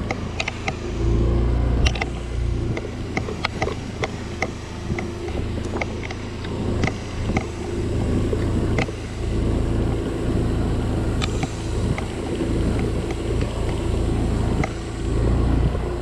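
Motorcycle riding over a badly broken, potholed road: a steady low engine and road rumble, overlaid throughout with many sharp, irregular knocks and rattles as the bike jolts over the rough surface.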